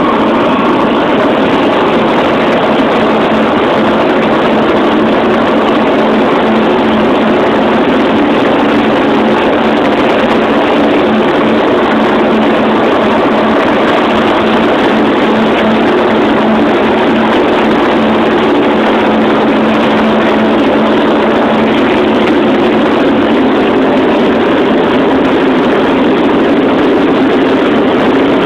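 Light sport aircraft's engine and propeller running at takeoff power, a loud steady drone heard from inside the cabin through the takeoff roll and climb-out.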